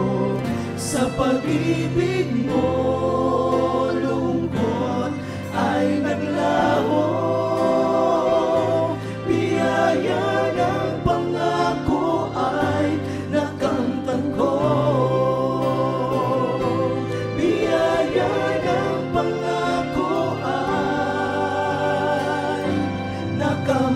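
Male vocal group singing a Tagalog gospel song in close harmony, accompanied by keyboard and acoustic guitar.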